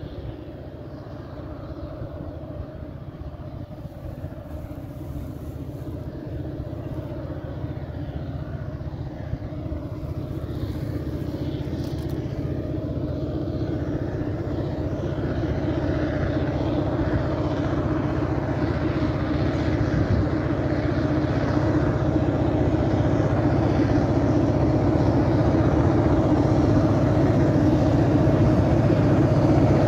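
ADIF class 310 diesel locomotive hauling six loaded ballast hopper wagons, approaching with a steady engine drone that grows gradually louder as it nears.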